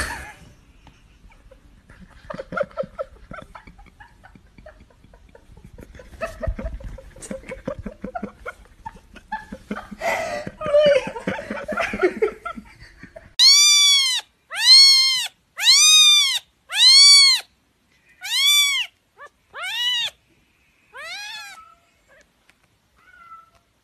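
A domestic cat meowing: four loud, long meows in a row, each rising then falling in pitch, followed by several shorter, fainter meows. Before them there is only faint, jumbled rustling.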